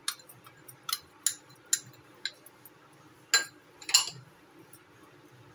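Metal spoon clinking against a ceramic bowl as rice flour is knocked off it into the mixing bowl: about seven sharp, separate taps, the loudest two about three and a half and four seconds in.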